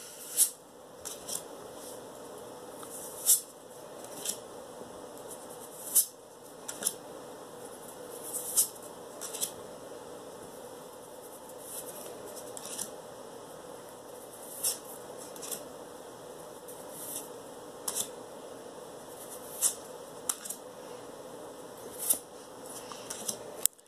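Pokémon trading cards being flipped through by hand, each card slid off the front of the stack and onto the back with a short, sharp snap. The snaps come about once a second, unevenly spaced.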